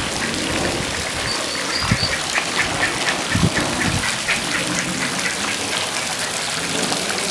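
Mallard hen and ducklings calling: a quick run of short, evenly repeated calls through the middle, over a steady wash of trickling pool water.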